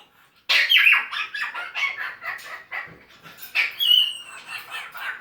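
African grey parrot coughing and hacking in a rapid run of short, harsh sounds, with a brief whistle-like squawk about four seconds in; the owner takes the coughing for a sign of severe pneumonia.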